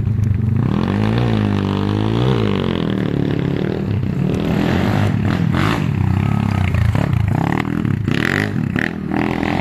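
A 140cc four-stroke pit bike engine revving as the bike rides along a woodland track, its pitch rising and falling with the throttle.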